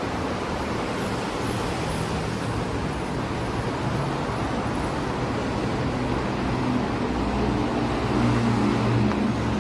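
Steady road traffic noise from passing cars, with the low hum of a heavier vehicle's engine growing louder in the last few seconds.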